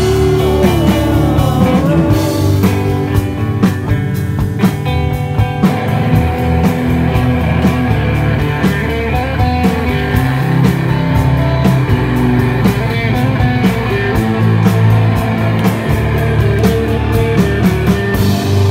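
Live rock band playing loud: electric guitar over drums, with singing at times.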